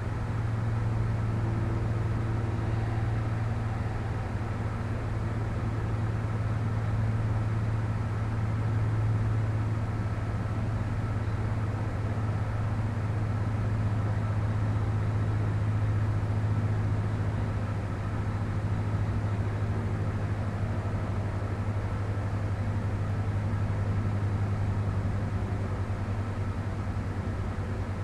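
Steady low hum with a few faint higher tones above it, slowly swelling and easing in loudness.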